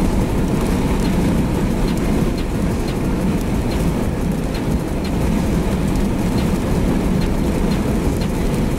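Steady, loud rushing rumble of wind close to an EF3 tornado, heavy in the low end, with faint light ticks scattered through it.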